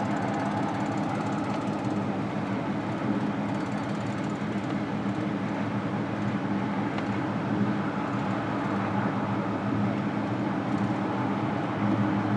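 V6 car engine idling steadily, a low even running sound; the engine carries a random-misfire code (P0300).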